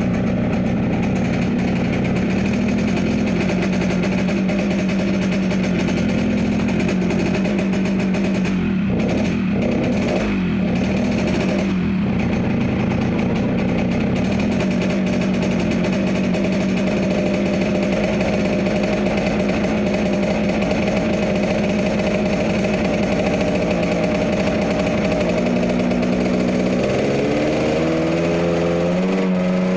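Yamaha RX-King's two-stroke single-cylinder engine idling steadily with a deep growling note, set up for the 'ngorok' idle. There are a few brief dips about ten seconds in, and the revs step up a few times near the end.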